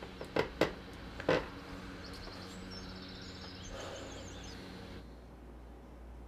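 A lighter flicked three times in quick succession to light a small pipe, then birds chirping outside a window over a steady low room hum. The sound drops to quieter room tone about five seconds in.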